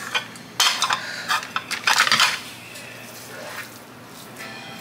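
Red plastic burger press being handled, its lid and base knocking and clicking together in a quick run of light plastic knocks for about two seconds, then softer handling noise.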